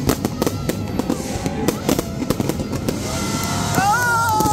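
Fireworks display going off: a dense run of sharp pops, crackles and bangs from aerial shells and crackling stars. Near the end a long held pitched sound rises in and stays steady over the crackling.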